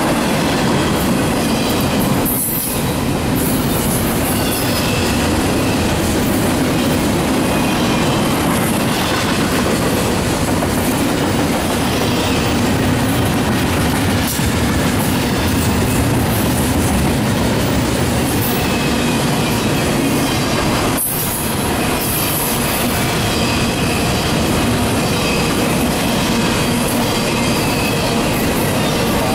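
Intermodal freight cars, double-stack container cars and trailer flatcars, rolling past at speed. Their steel wheels on the rails make a steady, loud rumble with faint high squealing tones over it.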